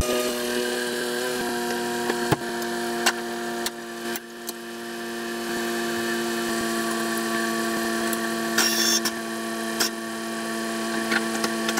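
A motor running with a steady hum, its pitch holding even, with a few sharp clicks and knocks over it.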